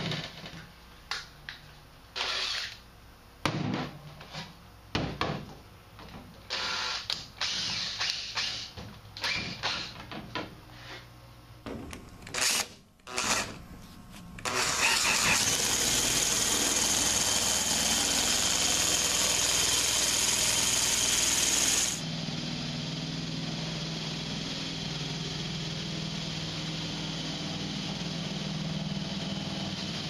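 Knocks and clatter of tools handled on a sheet-metal furnace cabinet. About halfway in, a power nibbler starts running steadily, cutting through the cabinet's steel side panel, then drops to a quieter steady run for the last several seconds.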